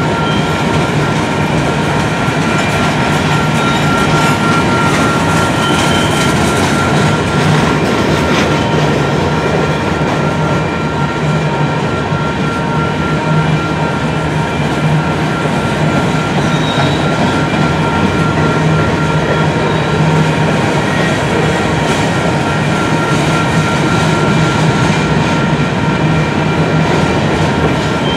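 Union Pacific freight train of covered hopper cars rolling past at close range: a steady, loud rumble and clatter of steel wheels on the rails, with a thin steady ringing tone over it.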